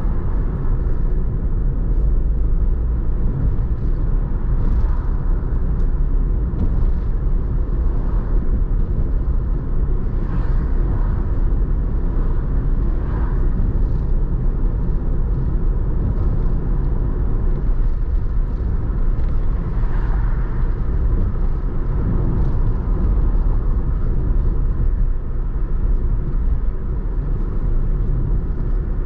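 Car driving along a road, heard from on board: a steady low rumble of tyre and engine noise.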